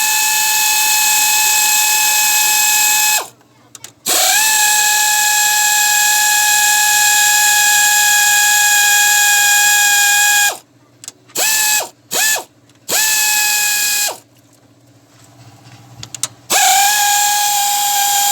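Handheld power tool spinning up and running at a steady high-pitched whine with a strong hiss, switched on and off repeatedly. There are several long runs, a few brief blips around the middle, and a pause of about two seconds before the last run.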